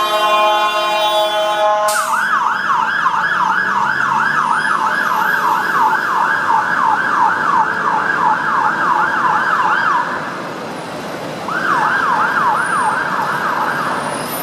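Fire engine warning equipment: first a steady, blaring multi-tone horn (the 'bullhorn'), then, after a cut, the siren on a fast yelp sweeping up and down about three times a second. The siren breaks off about ten seconds in and resumes a second and a half later.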